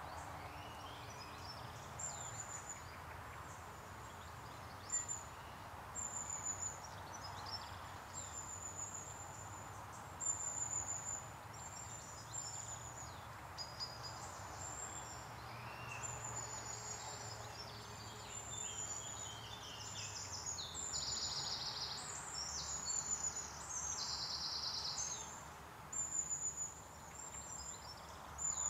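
Woodland songbirds calling: thin, high-pitched notes repeated every second or so, with denser buzzy trills about two-thirds of the way in, over a soft steady background hiss.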